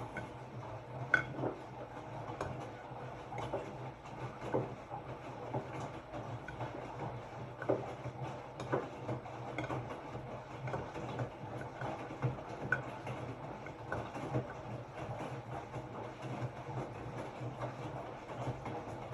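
Hotpoint-Ariston RSG 825 J washing machine running, a steady low motor hum with irregular knocks and clicks from the turning drum.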